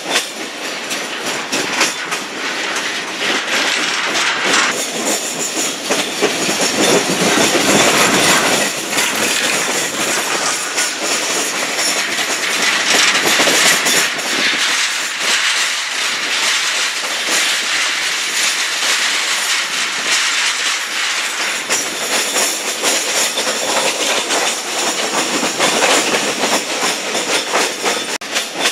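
Train running at speed, heard through an open carriage window: a steady rush of wheel-on-rail noise with rapid clicking and clattering of the wheels over the track, swelling louder a few times.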